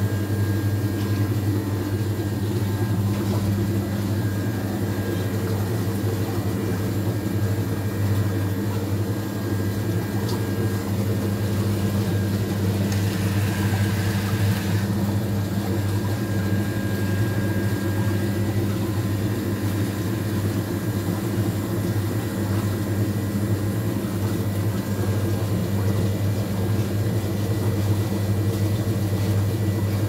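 Steady low machine hum, unchanging throughout, with a brief hiss about thirteen seconds in.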